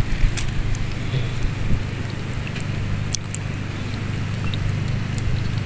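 A steady low rumble with scattered small clicks and wet splashes as hands pick fish and shrimp out of shallow water.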